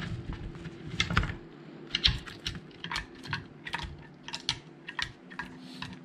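A Harris's hawk working a wooden food-puzzle toy: a run of irregular light clicks and knocks, several a second, as the wooden and plastic puzzle pieces are moved about.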